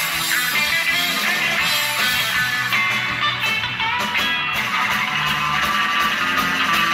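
Live rock band playing an instrumental passage: loud electric guitars over bass and drums, with no singing.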